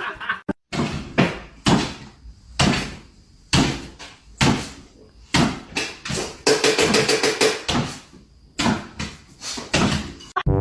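A series of about a dozen sharp knocks or bangs, roughly one a second, against something hard.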